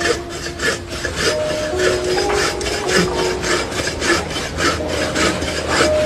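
Rapid rhythmic rasping strokes, about four a second, with a few faint steady tones beneath them.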